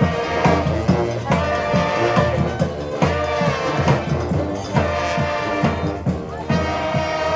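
Street brass band playing live: several brass horns, trombone among them, holding and moving between sustained notes over a steady drum beat.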